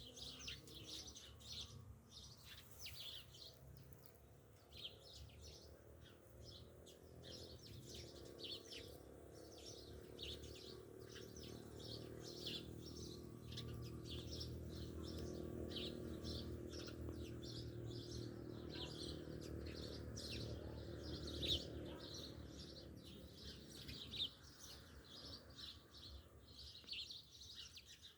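Bees buzzing, a low steady hum that grows louder through the middle and fades again near the end, with small birds chirping repeatedly throughout.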